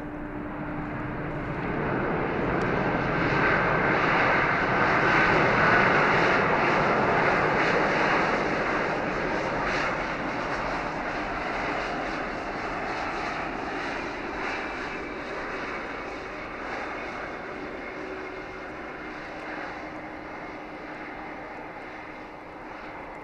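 Airbus A320-232 jetliner's IAE V2500 turbofans running in reverse thrust during the landing roll, a loud rushing jet noise that grows to a peak about six seconds in and then slowly fades as the aircraft rolls past and away.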